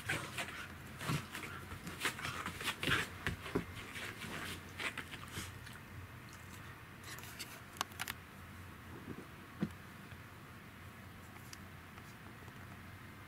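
A Pembroke Welsh corgi and a cat play-fighting: a quick run of scuffling, scratching and clicking from paws and claws on a foam floor mat through about the first five seconds, then mostly quiet with a few scattered clicks.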